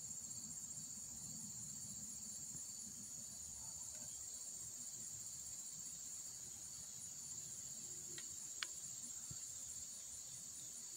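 Faint, steady, high-pitched chirring of insects with a fast, even pulse, and one small click late on.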